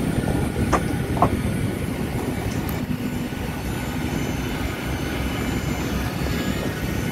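Loud, steady rumbling noise of wind buffeting a handheld microphone on an airport apron, over the hum of aircraft and ground equipment. A couple of short knocks sound about a second in.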